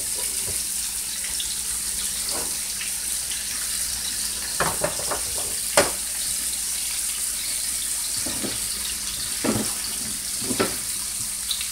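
Boneless beef short ribs sizzling steadily as they brown in a skillet, with a few scattered sharp taps and pops.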